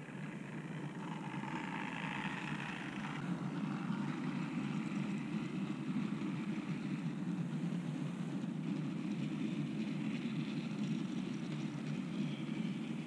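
A model train passing close by: an OO gauge BR Standard Class 5 steam locomotive and a long rake of cattle wagons rolling along the rails in a steady rumble of wheels and running gear. A higher whirr in the first few seconds comes as the locomotive goes by.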